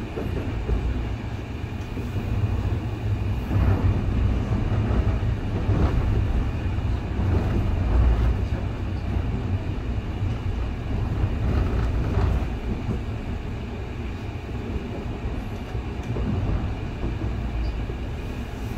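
Seoul Metro 2000-series electric train running along the rails, heard from inside the carriage: a steady low rumble of wheels on track that swells and eases a little.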